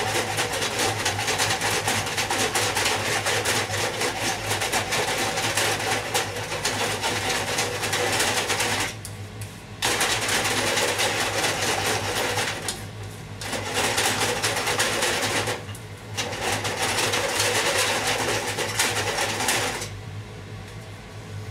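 Long wooden chopsticks rapidly scraping and clattering against a nonstick frying pan as soft egg is stirred and the pan is jiggled, a fast continuous rattle. It stops briefly three times and dies away about 20 seconds in.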